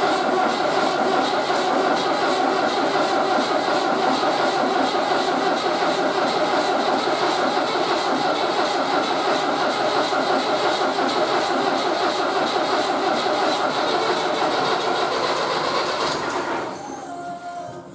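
Leyland 270 tractor's diesel engine running steadily with an even, pulsing clatter, newly back in service after an engine repair. Near the end it dies away, its pitch falling as it runs down.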